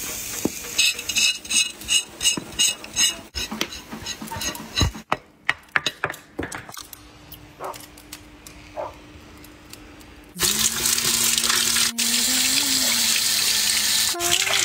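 Evenly spaced clicks, then a series of sharp knocks as an axe chops into a cow's head. From about ten seconds in, a steady rush of water pours over the head as it is rinsed.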